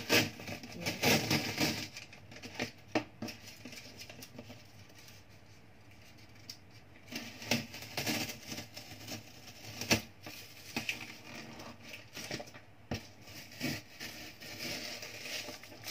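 Packing tape being peeled off a cardboard box, a loud rustling tear in the first couple of seconds, then scattered scratches and light taps as the box is handled, with more rustling near the end.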